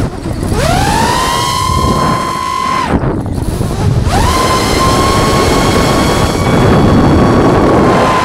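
FPV drone's motors whining at a high, steady pitch. The whine spools up about half a second in, cuts out abruptly near three seconds and spools straight back up a second later: the throttle is dropped for a flip and punched again. Wind rush runs underneath.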